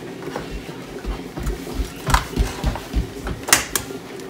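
Raw eggs being cracked on the rim of a stainless steel mixing bowl: a sharp crack about two seconds in and another about a second and a half later, among soft low thumps of the bowl being handled on the counter. A steady low hum runs underneath.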